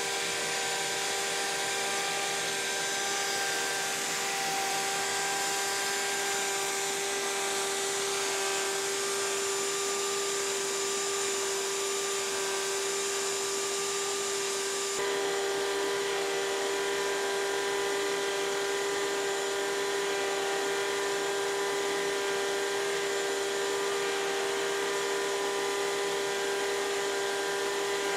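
Wood router running with a steady high whine as it copy-carves a wooden hammer handle on a metal lathe, with the dust extractor running under it. The sound shifts slightly about fifteen seconds in.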